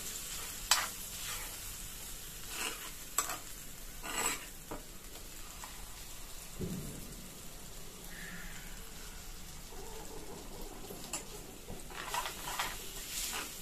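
Green chilli and ginger paste sizzling in oil in a non-stick pan, frying off its raw smell. A steel spoon now and then scrapes and clicks against the pan as the paste is stirred.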